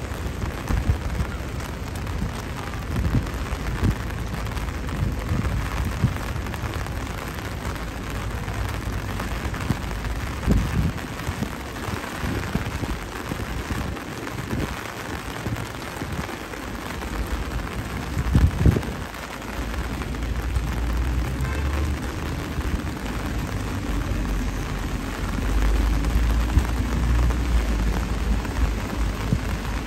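Steady rain falling, with a low rumble underneath that grows louder near the end and one brief louder thump about two-thirds of the way through.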